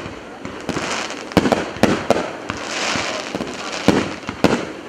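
Aerial fireworks going off: several sharp bangs about a second apart, with a crackling fizz of bursting shells around the middle.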